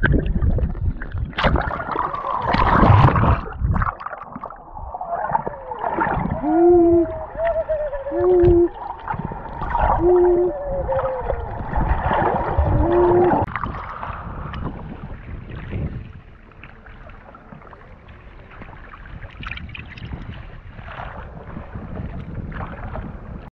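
A snorkeller hooting 'ooh' underwater to attract dusky dolphins: four short hoots between about six and thirteen seconds in, over splashing and gurgling water. The hooting stops and the water noise eases after about fourteen seconds.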